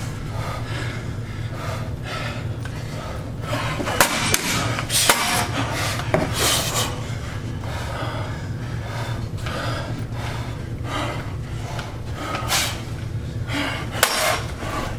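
Steel machetes striking a round metal shield and each other in a sparring bout: irregular sharp clanks and knocks, several of them a few seconds apart, over a steady low hum.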